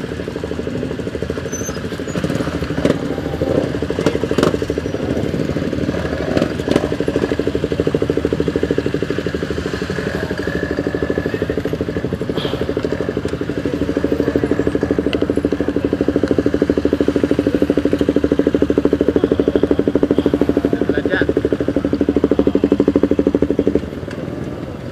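Motorcycle engine idling close by with a fast, even pulse, other motorcycles running around it; the near engine stops abruptly shortly before the end.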